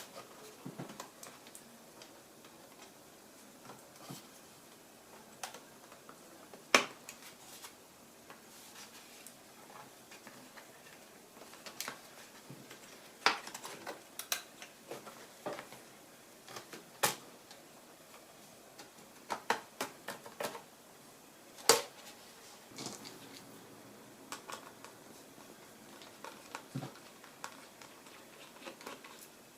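Irregular sharp clicks and light taps of small plastic and metal laptop parts being handled while a ThinkPad X240 is taken apart. The loudest clicks come at about 7, 13, 17 and 22 seconds in.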